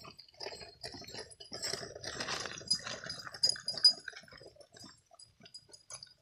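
Footsteps and stroller wheels crunching on a gravel trail as a person and a dog walk past, loudest about two to four seconds in and then fading away.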